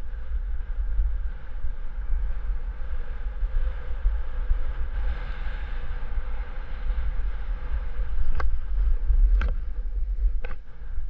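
Wind buffeting the camera microphone, a steady low rumble, with three sharp knocks in the last three seconds.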